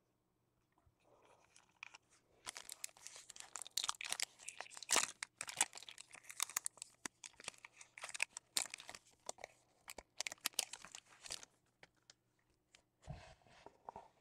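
Trading-card pack wrapper being torn open and crinkled by hand, a run of sharp crackling for about nine seconds, then a few last crinkles near the end.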